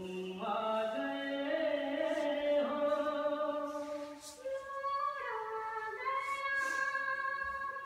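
Background music: a slow melody sung in long held notes that step from pitch to pitch.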